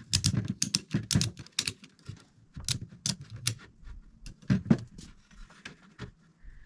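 Ratchet strap being cranked tight, its ratchet giving a run of sharp, irregular clicks that thin out in the second half.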